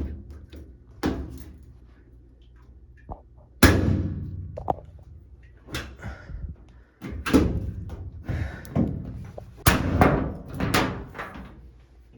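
The lid of a GE stackable washing machine is slammed shut again and again: about six separate bangs and clunks, the loudest about three and a half seconds in. The lid lock does not engage; the lid lock switch is faulty.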